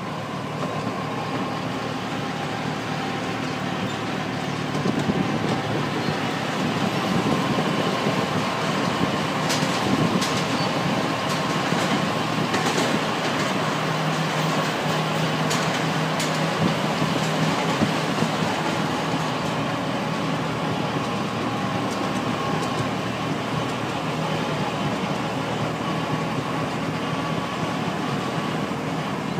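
Miniature railway locomotive running steadily along the track: engine noise mixed with the rumble of its wheels on the rails. A few sharp clicks from the wheels on the track come near the middle.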